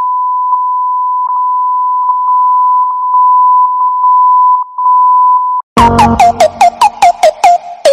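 A steady, high, single-pitch censor bleep lasting about five and a half seconds, laid over the driver's speech. It cuts off sharply and electronic music with quick plucked notes starts.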